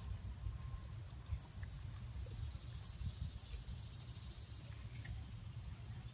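A German shepherd biting and chewing a slice of yellow watermelon, heard as a few faint wet crunching clicks over a steady low rumble on the microphone.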